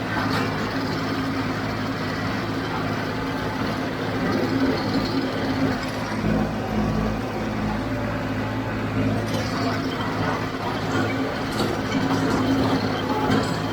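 John Deere 5055D tractor's three-cylinder diesel engine running steadily under load while driving a JD 348 square baler, with a few sharp knocks toward the end.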